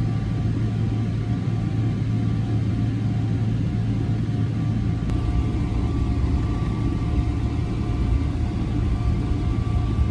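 Airliner cabin noise: a steady low rumble and hum with faint, steady whining tones above it.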